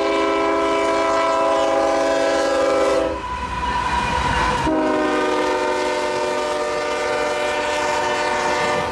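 Diesel freight locomotive's multi-chime air horn blowing two long blasts, the second starting about a second and a half after the first ends, over the low rumble of a loaded coal train.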